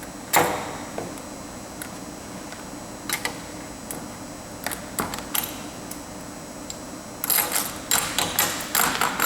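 Excess bolt ends on hinged plate conveyor belt fasteners being bent and snapped off with bolt breakers. There is a sharp metal snap about half a second in, a few scattered clicks, then a quick run of metallic clicks and clatter near the end.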